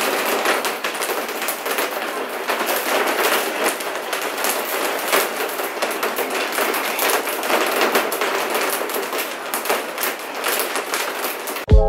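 Heavy rain drumming steadily on a window and roof, a dense, unbroken patter of countless tiny drop impacts.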